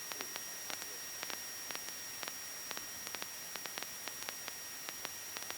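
Steady hiss of an aircraft intercom audio feed, with a thin high whine and scattered faint ticks of static; the engine itself is not heard, shut out by the headset intercom.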